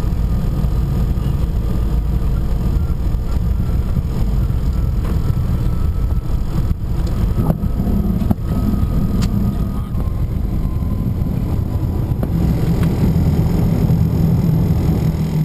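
Learjet 45XR cockpit noise while the jet rolls out and taxis after landing: a loud, steady low rumble of the engines and the rolling aircraft. There are two faint clicks about halfway through, and a steadier low hum comes in near the end.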